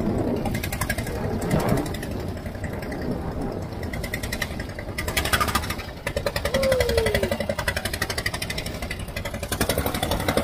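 Outrigger boat's inboard engine running at speed with a rapid, even chugging beat.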